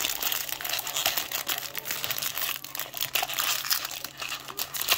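Foil trading-card pack crinkling and tearing as hands rip it open: a dense, continuous crackle of rapid small crinkles.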